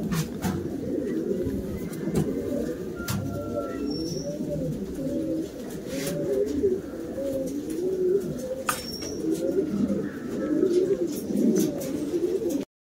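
Fancy pigeons with muffed feet cooing continuously: repeated rising-and-falling coos that overlap, with a few sharp clicks in between. The sound cuts off abruptly near the end.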